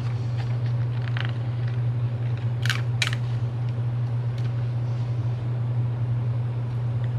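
A steady low hum throughout, with faint paper rustling and two sharp ticks a fraction of a second apart a little before the middle, as a paper planner sticker is peeled from its backing and pressed down onto a planner page.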